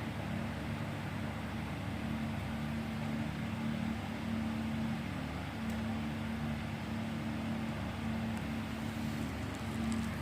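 Steady low mechanical hum with a constant droning tone.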